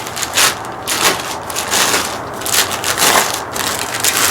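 Crinkling and crunching of packaging as a new wheel hub is taken out of its box, in a string of irregular rustles.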